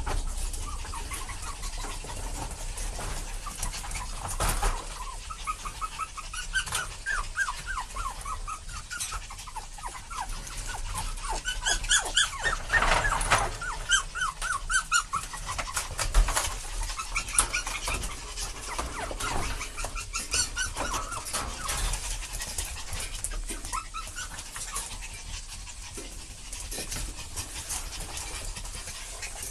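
Excited Chihuahuas, adult dogs and a puppy, whining and yipping at play in quick runs of short high calls, several a second, that come and go.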